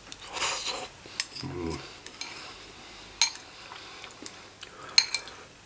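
Cutlery clinking and scraping against a bowl while eating ramen noodles, with a few sharp clinks, the loudest about three and five seconds in.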